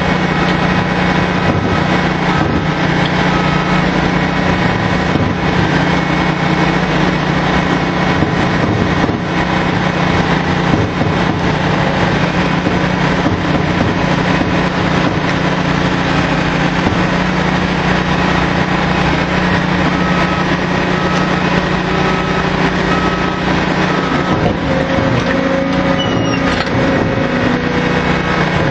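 Drilling rig machinery running with a loud, steady drone on the rig floor while casing is run in.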